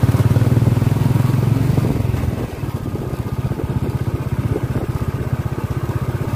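Motorcycle engine running steadily with an even, low pulsing thrum, easing off a little about two and a half seconds in.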